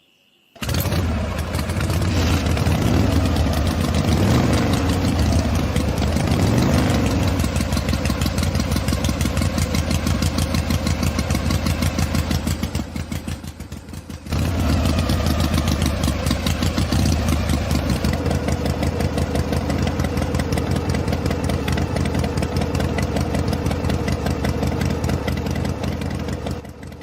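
A small engine-like machine running with a fast, even chugging pulse. It fades out around the middle, then starts again a second later and keeps running.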